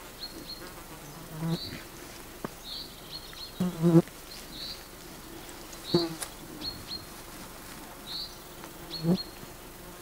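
Flying insects buzzing in short passes close to the microphone, several times, with the loudest pass a little before 4 seconds in. Behind them a short high chirp repeats every second or so.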